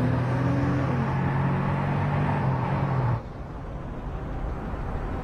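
Car engine running under way on the road, its pitch rising slightly and then holding steady. About three seconds in, it cuts off abruptly to a quieter, even low rumble of road noise inside the car.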